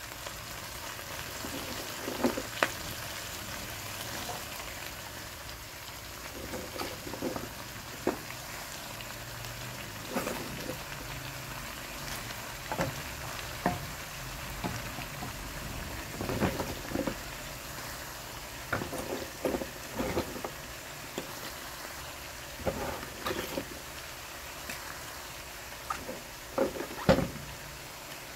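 Kangkong (water spinach) stir-frying in a pan over rendered pork fat: a steady sizzle, broken by irregular clacks and crackles as the greens are tossed.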